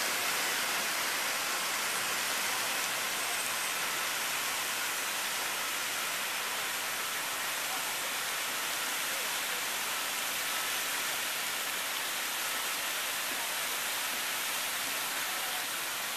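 Crown Fountain's glass-block tower with a sheet of water cascading down its face and splashing onto the wet plaza below: a steady, even hiss of falling water.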